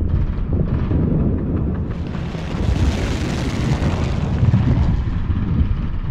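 Battle sound effects: a continuous low rumble of distant explosions. A rushing swell of noise builds about two seconds in and fades again a few seconds later.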